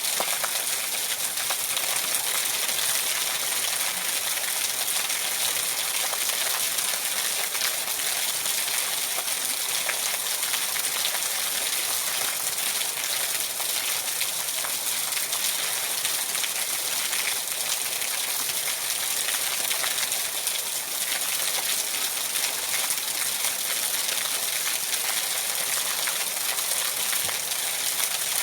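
Steady heavy rain: a dense, even hiss of falling drops with fine crackle of drops hitting surfaces.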